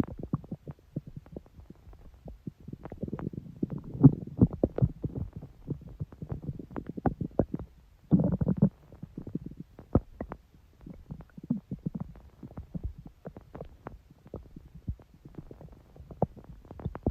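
Human stomach growling and gurgling: a steady run of quick wet pops and crackles, with louder rumbles about three to five seconds in and again around eight seconds.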